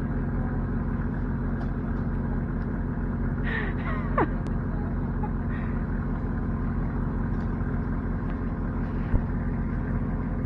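An engine running steadily at idle, a low even hum. A short falling squeal comes about four seconds in, and a sharp click near the end.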